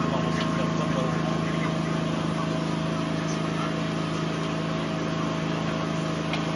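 A steady engine-like drone holding one fixed pitch over a haze of background noise.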